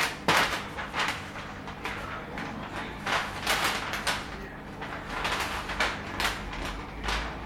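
Masking paper crinkling and rustling as it is handled, with masking tape pulled and pressed down, in irregular noisy bursts and a sharper snap about a third of a second in. The car's bumper is being masked off ahead of spray painting.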